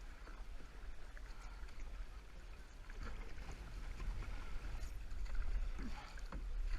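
Canoe paddles stroking through river water, with small splashes and water noise over a steady low rumble on the microphone.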